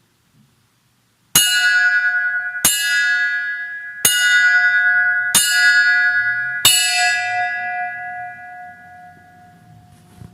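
A bell struck five times at an even pace, about one strike every 1.3 seconds. Each strike is a clear ringing tone that carries over into the next, and the last rings out slowly.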